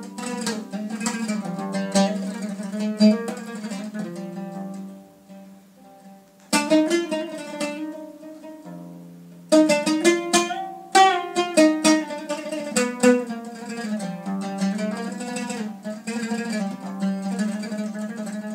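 Solo oud, plucked with a plectrum: quick runs of notes that die down to a few soft held notes about four seconds in, then strike back in strongly at about six and a half and again at about nine and a half seconds, carrying on as a lively melody.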